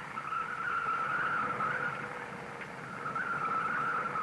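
Car tyres squealing through tight hairpin turns, in two long wavering swells that dip about halfway through, over a faint steady tone.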